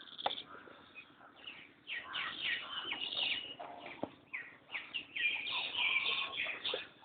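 Birds chirping in quick repeated short calls, busiest from about a second and a half in until near the end.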